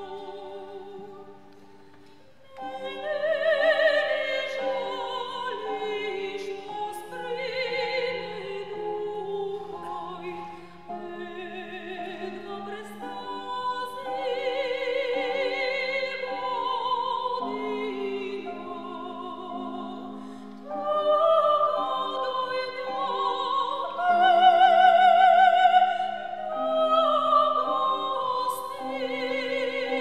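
Two sopranos singing a classical art song in wide operatic vibrato, accompanied by piano and cello. After a brief quieter moment near the start, the voices come back in.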